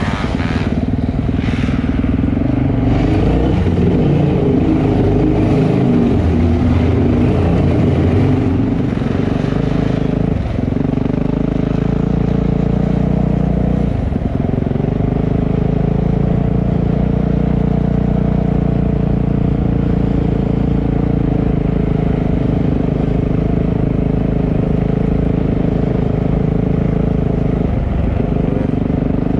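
Motocross dirt bike engine running, its pitch rising and falling with the throttle for the first several seconds, then holding a steady speed with a few brief dips.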